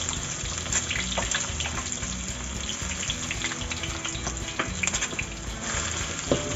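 Cubes of fish cake frying in hot oil in a wok: a steady sizzle with crackles. Near the end a spatula stirs them in the pan.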